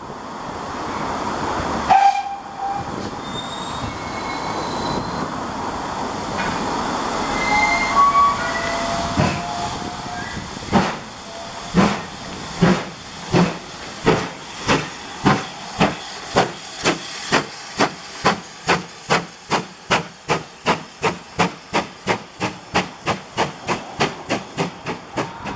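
A steam locomotive starting a train: a steady hiss of steam, a whistle about eight seconds in, then the exhaust beats from the chimney, slow at first and quickening steadily to about three a second as it gets away.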